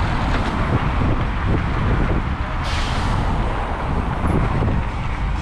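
Steady city road traffic: cars passing close by on a wide street, engines and tyres running together, with a short hiss about two and a half seconds in.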